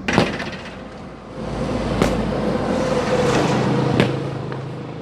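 Demolition machinery working: an engine runs under a noisy rumble that swells up and dies back, with three sharp crashing knocks about two seconds apart.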